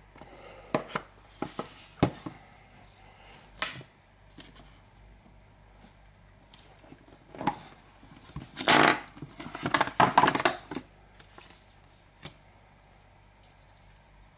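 A cardboard smartphone box being handled and opened: scattered clicks and taps, then two louder scraping rustles about nine and ten seconds in as the phone is lifted from its tray.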